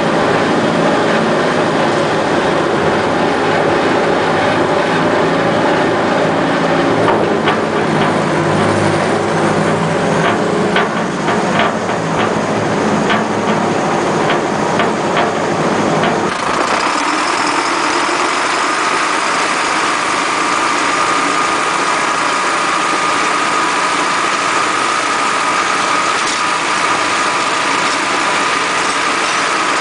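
Zetor Forterra 105 tractor's diesel engine running steadily under load while ploughing, with a run of clicks and knocks in the first half. About halfway through the sound changes abruptly: less low hum, and a steady high whine comes through.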